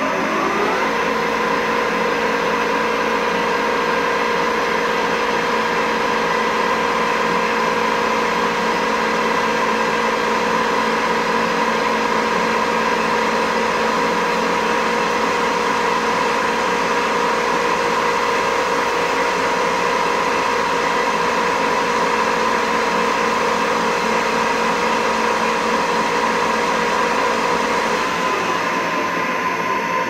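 Metal lathe running at speed with a steady whine, spinning an annealed copper tube against a former to flare it into a horn bell. The pitch climbs in the first second and falls away near the end.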